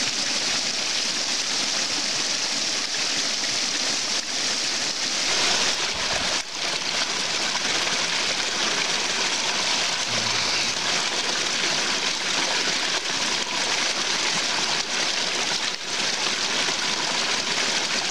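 Small woodland stream splashing steadily over a little cascade into a shallow pool.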